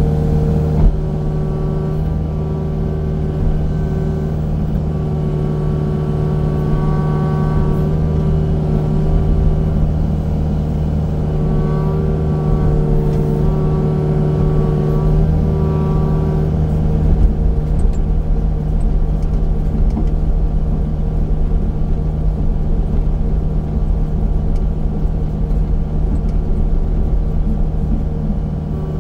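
Engine of a heavy land-clearing machine running steadily, its pitch shifting slightly now and then, with a brief knock about a second in.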